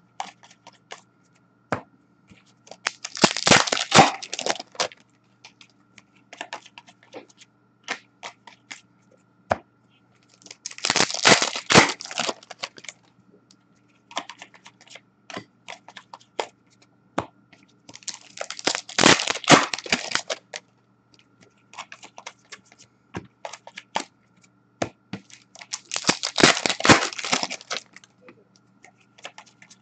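Upper Deck Series 1 hockey card pack wrappers torn open one after another: four crackling tears of about two seconds each, roughly every seven seconds. Between them come light clicks of cards being handled and set down, over a faint steady hum.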